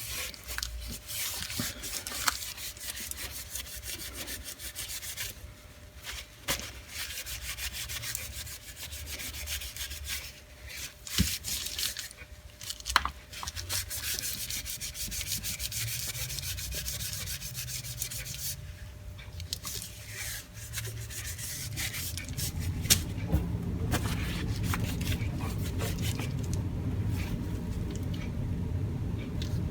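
A pre-moistened cleaning wipe rubbed back and forth along an electric drill's power cord: continuous scrubbing rubs, with a few knocks as the cord is handled.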